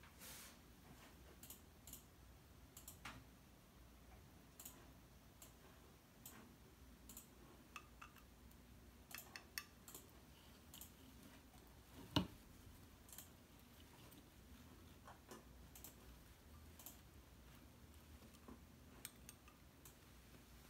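Near silence with faint, irregular small clicks and taps, one louder click about halfway through.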